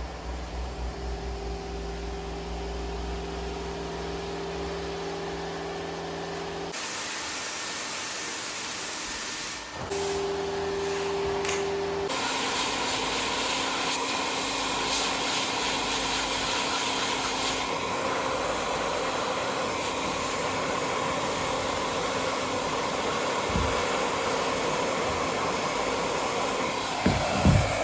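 Steady hissing noise of workshop equipment. Its character changes abruptly several times, at edit cuts, and a low steady hum runs under it in the first part.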